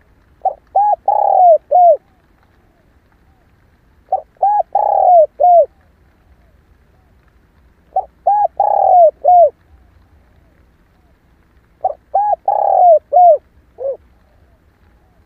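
Female spotted dove cooing: four phrases about four seconds apart, each a quick run of four or five short, arched coos. It is a lure recording of the kind used to get a male dove calling.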